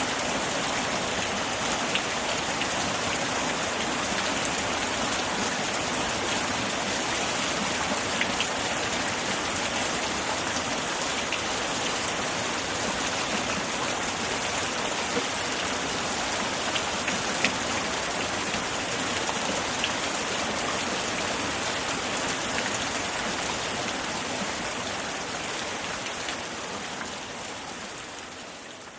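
Steady heavy rainfall, a dense even hiss with an occasional sharper drop tick, fading out near the end.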